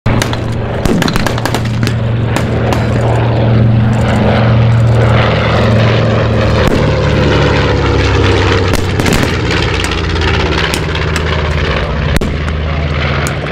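Propeller aircraft engines running, a loud steady drone with a crackle through it that starts abruptly; its pitch shifts a little about six seconds in.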